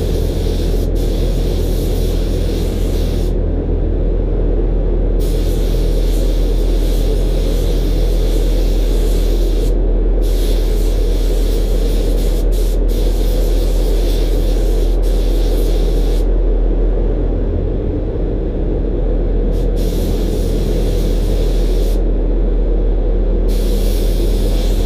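DeVilBiss gravity-feed spray gun hissing as it sprays primer. The hiss stops and starts again four times as the trigger is let go and pulled. A steady low hum runs underneath.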